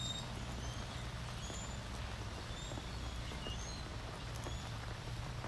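Wood campfire burning in a fire pit, crackling with many small irregular pops over a steady low rumble.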